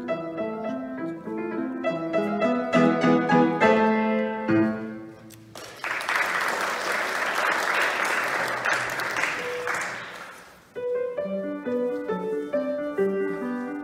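Upright piano playing, the passage ending on a held chord about five seconds in; a few people clap for about five seconds, and then the piano starts again.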